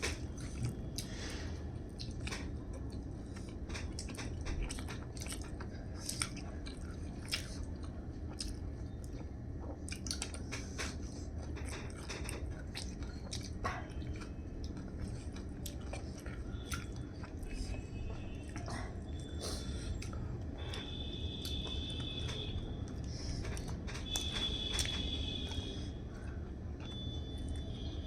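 A person chewing and biting food close to the microphone: many short crisp crunches and mouth clicks over a steady low hum. A thin high steady tone sounds twice in the second half.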